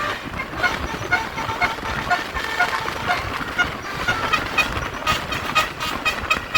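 A bus's basuri 'telolet' musical horn playing a tune of short, quick notes at changing pitches, over vehicle noise.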